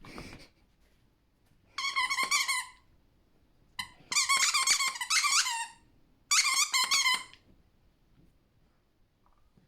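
Squeaky toy being chewed by a Chinese Crested dog, giving three bursts of rapid, high, wavering squeaks, the longest about four seconds in.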